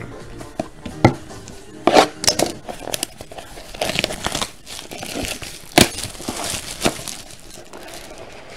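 Plastic wrapping crinkling and tearing as it is handled, with a few sharp taps and clicks, the loudest about two seconds in and near six seconds in.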